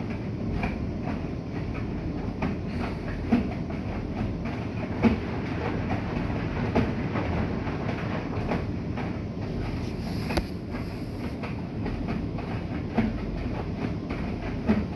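Bosch WGG154A10 front-loading washing machine running a wash cycle: a steady drum rumble with irregular knocks as the laundry tumbles.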